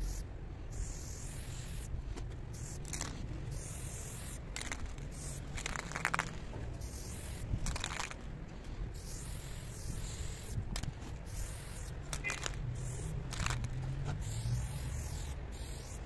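Aerosol spray-paint can hissing in repeated bursts of varying length, starting and stopping as paint is sprayed onto a wall.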